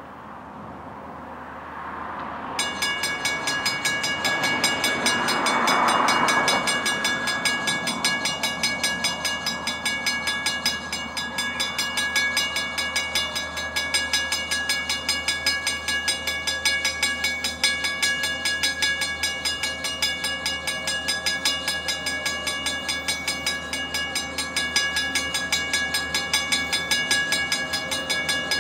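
Railroad grade-crossing warning bell starting suddenly about two and a half seconds in and ringing in steady, evenly repeated strokes: the crossing signals have activated for an approaching train. A brief swell of rushing noise rises and fades about four to seven seconds in.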